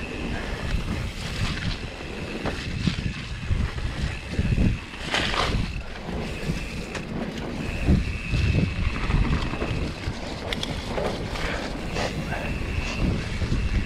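Wind buffeting the microphone in gusts, with a low rumble throughout. A faint high steady tone fades in and out.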